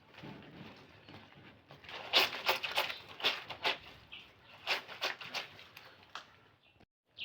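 Clothes being washed by hand in water: a run of irregular splashes and swishes of wet fabric, two or three a second, starting about two seconds in. The sound drops out abruptly just before the end.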